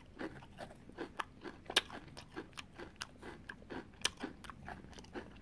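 A person chewing a mouthful of ice cream with crunchy graham cracker pieces close to the microphone: irregular wet mouth clicks and small crunches, several a second.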